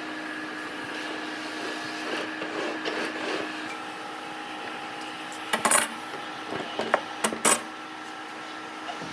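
A short clatter of hard objects a little past halfway, then three or four sharp knocks, over a steady machine hum.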